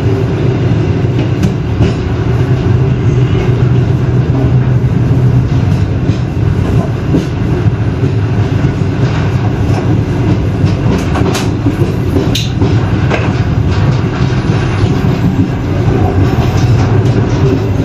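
Passenger train rolling out of a station, heard from inside the coach: a steady low rumble of wheels on rails, broken by scattered sharp clicks and knocks as the wheels pass rail joints.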